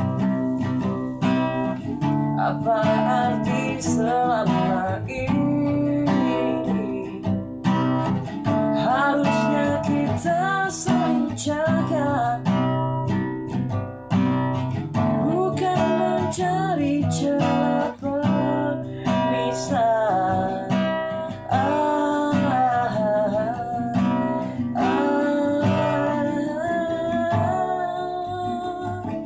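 A nylon-string classical guitar played with steady strumming and picked chords, with a man singing along.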